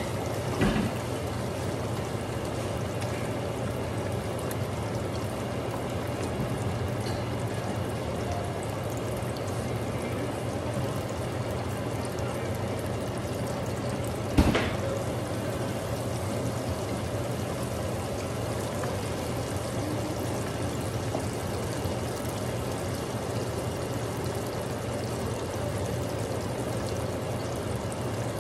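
Fish deep-frying in a skillet of hot oil, the oil sizzling and bubbling steadily. A knock comes just under a second in, and a sharper, louder one comes about halfway through.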